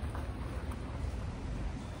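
Background noise: a steady low rumble under a faint even hiss, with a few faint clicks.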